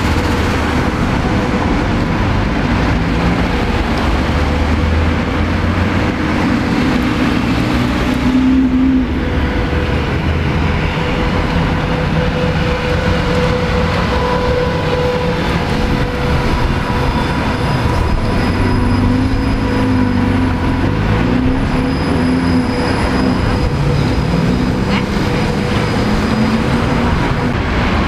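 City street traffic with trolleybuses and cars passing: a steady hum with thin held tones and pitches that rise and fall as the vehicles speed up and slow down.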